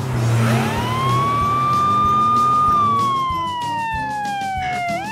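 Police siren wailing: one slow rise to a held high tone, then a long fall, and the next rise beginning near the end, over background music.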